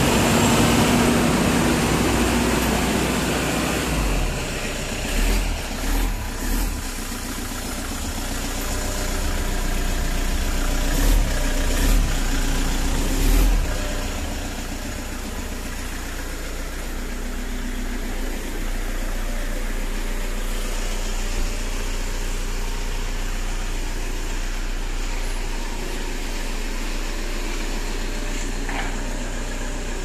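Stock Toyota Hilux turbodiesel engine running at idle, steady after a louder first few seconds and several brief bumps in the first half.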